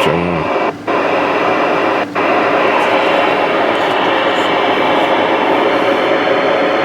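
Steady static hiss from a CB radio's speaker (Stryker SR-955HPC) with the squelch open, broken by two brief dropouts about one and two seconds in.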